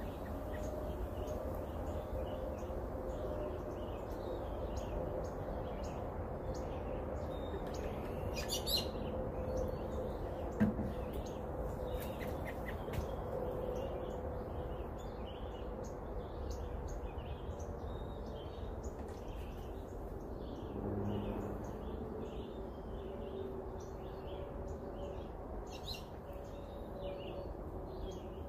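Songbirds chirping and singing in the trees, many short calls through the whole stretch, over a steady low background hum. A single sharp knock stands out about ten seconds in.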